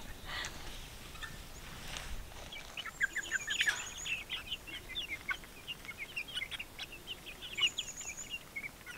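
A small flock of young chickens peeping and chattering in quick, high chirps, with a brief higher trill twice.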